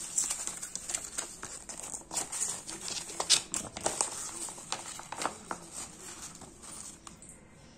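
Bubble-wrap packaging and a paper instruction leaflet crinkling and rustling as they are handled: a busy run of crackles that thins out over the last couple of seconds.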